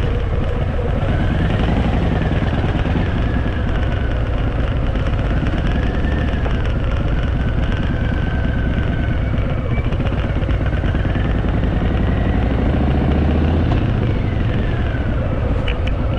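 Harley-Davidson Fat Boy V-twin engine running under way, its note rising and falling several times with the throttle and gear changes.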